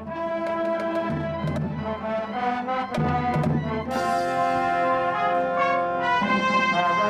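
School marching band playing: brass (trumpets, trombones) with drum strikes, the full band coming in louder about four seconds in.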